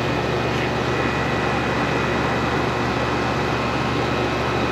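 Central air conditioner's outdoor condensing unit running steadily: compressor hum under the whoosh of the condenser fan, restarted on a newly fitted run capacitor after the old one failed and kept it from starting.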